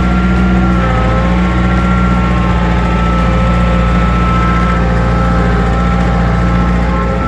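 John Deere tractor engine running steadily at about 2,000 rpm under load while pulling a plough, in first low gear with all-wheel drive. A thin steady whine sits above the engine note.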